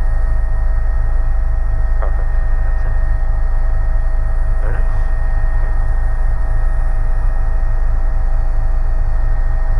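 Cabin noise of an AW119 Koala helicopter in flight: a steady low drone of the rotor and Pratt & Whitney PT6B-37A turboshaft, with steady high whines from the engine and gearbox.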